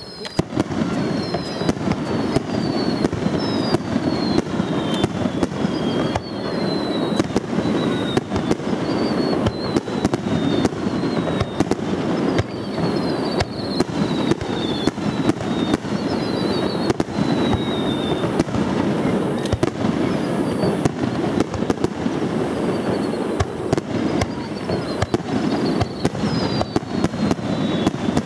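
Fireworks display: a dense, unbroken run of bangs and crackling, with repeated high whistles that each fall in pitch over about a second.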